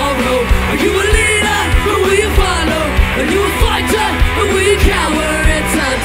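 Live ska-punk band playing, with a woman singing lead over a steady drumbeat.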